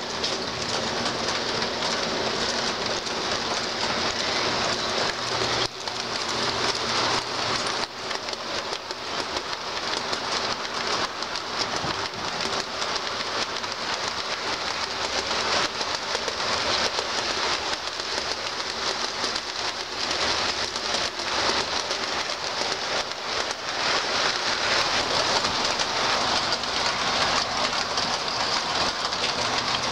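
O scale model trains running on two-rail track: a steady hissing rattle of metal wheels rolling over the rails, thick with fine clicks.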